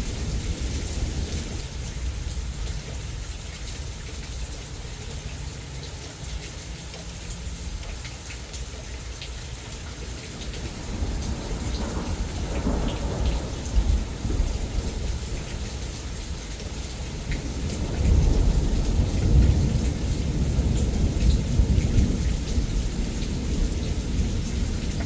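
Heavy rain pouring steadily, with low rolling thunder rumbling under it. The thunder swells about halfway through and grows loudest in the last third.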